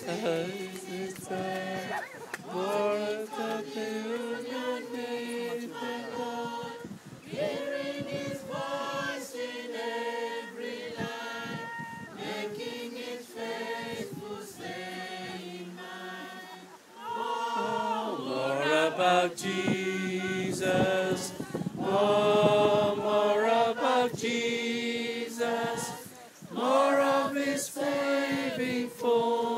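A small group of voices singing a hymn together without accompaniment, growing louder about two-thirds of the way through.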